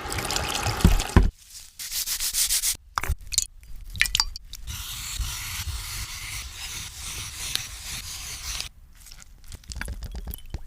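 Close-up food-preparation noises: irregular scraping and rubbing strokes, with a steady hiss lasting about four seconds in the middle and a few sharp clicks.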